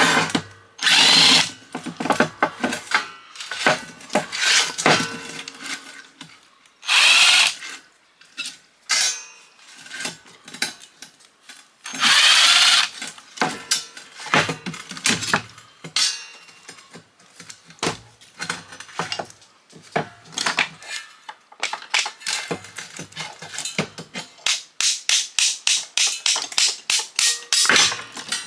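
Three short bursts of a handheld power tool, about a second each, while a fan motor is being taken apart, with clinks and knocks of metal parts between them; near the end, a fast run of sharp clicks.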